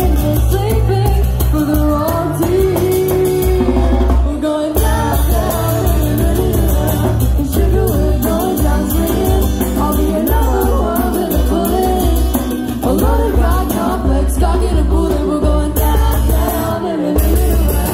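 Loud dance music with a singer over a heavy bass.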